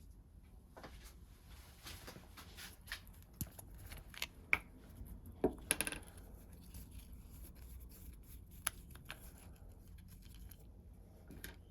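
Irregular small clicks, taps and scratches of a motorcycle toolbox lock's small parts and tools being handled, with a few sharper clicks around the middle.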